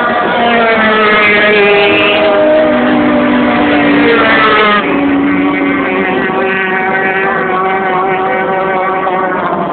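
Racing powerboat engines running at high revs as the boats pass, several engine notes layered and sliding in pitch. About five seconds in, the sound drops sharply and the notes change.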